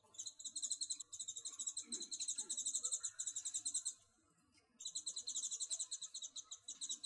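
A high-pitched, rapid, evenly pulsing trill from a small animal, in two long runs: about four seconds, then a brief pause, then about two seconds more.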